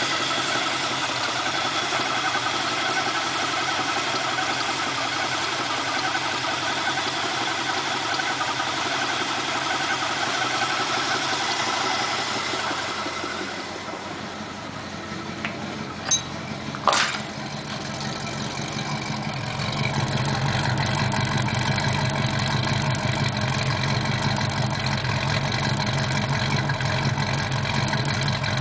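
Ford 351 Windsor small-block V8 running, with an engine knock the owner cannot identify despite good oil pressure and no loss of power. The engine sound dips briefly about halfway through, with a couple of sharp clicks, then carries on deeper and heavier.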